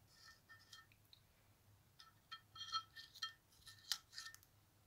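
Faint handling noise of thin cardboard shims against the platter of an Arktur 006 turntable: scattered small clicks and a few short scrapes, busiest in the second half.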